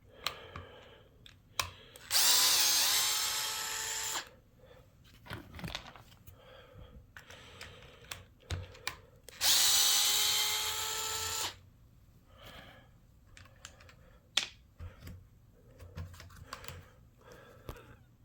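Small power driver running twice, about two seconds each time, backing out the screws of an RC truck's differential cover. Small clicks and knocks of handling parts in between.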